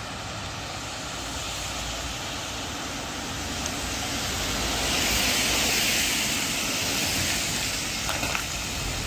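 Road traffic on a wet road: a steady tyre hiss that swells about five seconds in as a vehicle passes.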